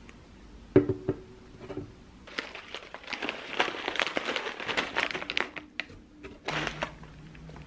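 Plastic granola pouches crinkling as they are handled and set down on a desk, in a long stretch of rustling from about two seconds in, with another short burst near the end. A few sharp knocks come about a second in.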